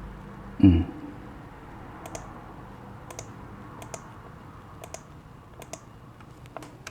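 Light, sharp clicks roughly once a second, each a quick press-and-release like a computer mouse button, after a single dull low thump about a second in.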